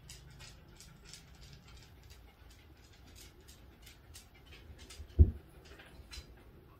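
Lesser goldfinch pecking at seed on a clear plastic window feeder: a string of light, irregular clicks and taps, several a second. About five seconds in there is one loud dull thump.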